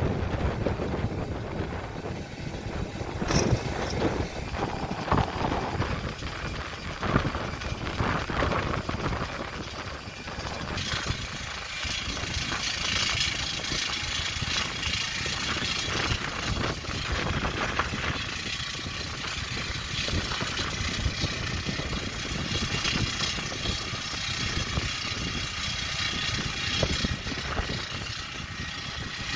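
Steady jet noise from an easyJet Airbus A320-family airliner on the apron during pushback: a continuous rush with a faint high whine, growing brighter and hissier about a third of the way in, over an uneven low rumble.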